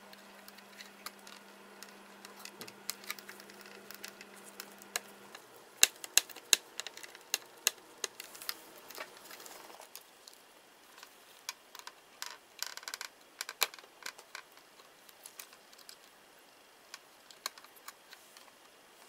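Irregular sharp clicks and light taps of plastic and metal laptop parts being handled and worked apart, busiest around the middle, over a low steady hum that stops about five seconds in.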